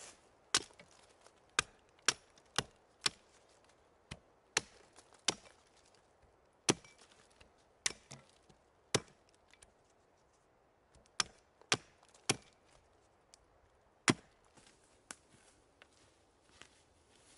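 A hatchet chopping a thin sapling at its base. It lands a run of about sixteen sharp, irregular chops, with a pause of about two seconds midway, and only fainter ticks near the end.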